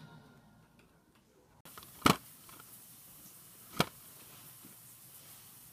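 Two sharp clicks of plastic handling about two seconds apart, a hand on a plastic DVD case, the first click the louder. The tail of television music fades out just before them.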